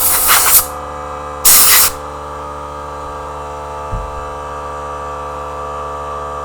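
Compressed air hissing from an air-compressor blow gun in two short blasts, the first stopping about half a second in and the second around a second and a half in. A steady hum continues afterwards, with a small knock about four seconds in.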